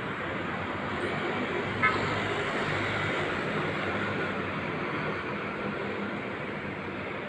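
Road traffic noise, a steady hiss of passing vehicles, with one short, sharp horn beep about two seconds in.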